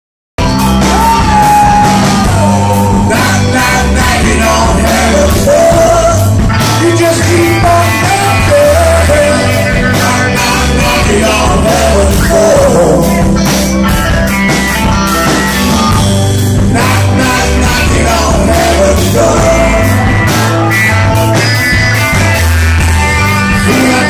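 Live rock band playing loud: a man singing over electric guitar, bass and a drum kit, cutting in mid-song.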